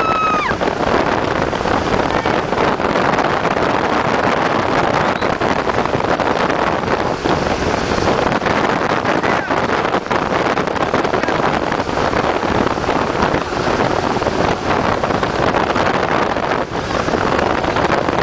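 Steady loud rush of a tow boat's motor running at speed, mixed with water spray hissing off a barefoot skier's feet and wind buffeting the microphone.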